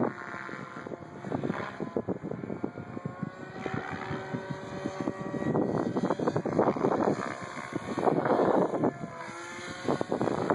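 SAB Goblin 770 electric RC helicopter in flight: rotor blade whoosh with the motor and drivetrain whine gliding up and down in pitch as it manoeuvres, swelling louder in the second half.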